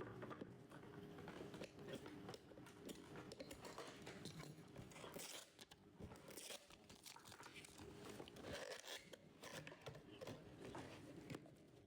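Faint handling of packaging: soft crinkling, small tearing sounds and scattered clicks and rustles, as a trading-card case is being opened.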